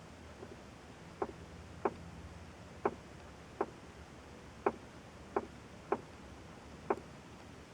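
Tapping from inside the dashboard of a 2004 Buick LeSabre: eight sharp taps at uneven spacing, about one a second, over a faint low steady hum. The cause of the tapping is unknown.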